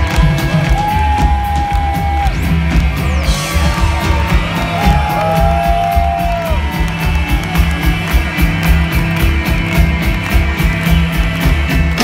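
Live funk-rock band playing loud, with saxophones, guitars, bass, keyboards and drums: a steady beat of heavy bass and drums with regular cymbal hits, and a few long held notes over it that slide down at their ends.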